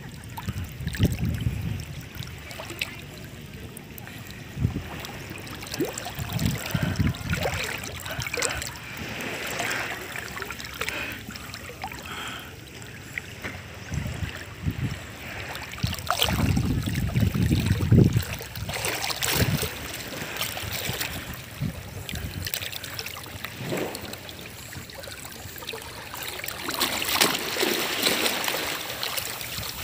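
Shallow seawater splashing and lapping irregularly as a person wades and a small dog paddles, with low gusts of wind buffeting the microphone now and then.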